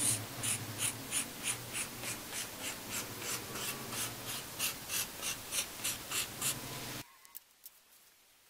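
Felt-tip marker scratching short hatching strokes on cardboard, a quick rhythmic scratch about three times a second. It cuts off suddenly about seven seconds in.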